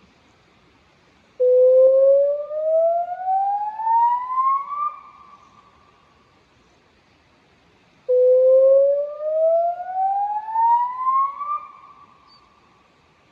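Electronic river warning siren, a Bosch PA system driving Bosch LBC-3406 horn loudspeakers, sounding a warning activation: two slow rising whoops, each climbing steadily in pitch for about three and a half seconds and then trailing off, with a few seconds of quiet between them.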